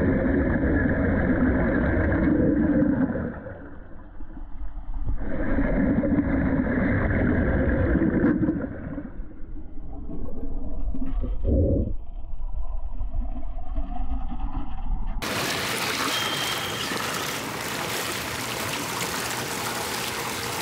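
Underwater wet stick welding heard through water: the arc gives a low bubbling crackle in two runs of about three seconds, with a quieter gap between. About fifteen seconds in it changes to an even hiss of the welding gas bubbles breaking and splashing at the surface of the dive tank.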